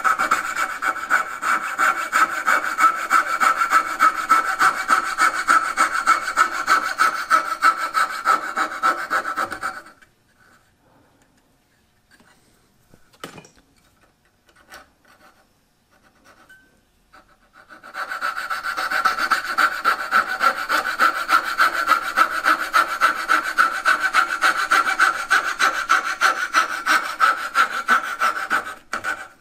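Fret saw with a very fine blade cutting out the waste between dovetail tails, in quick, even strokes. The sawing stops for several seconds about a third of the way in, with only a few light clicks, then starts again and runs until just before the end.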